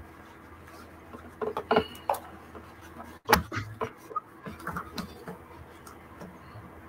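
A few short clicks and knocks, with the sharpest about halfway through, over a faint low hum of room tone.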